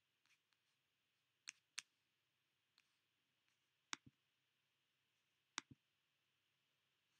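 Faint computer mouse clicks: a few light clicks in the first two seconds, then two sharper click pairs, press and release, about four seconds and five and a half seconds in, as a dropdown menu is opened and an item chosen.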